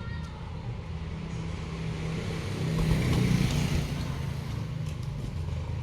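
A motor vehicle's engine running close by, growing louder about halfway through and then easing off.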